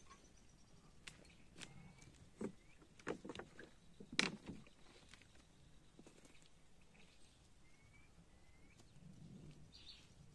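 Faint rustling and knocking of camping gear being handled and footsteps on the damp leaf litter of the forest floor, loudest in a few knocks about four seconds in. A few faint short rising bird chirps come through between them.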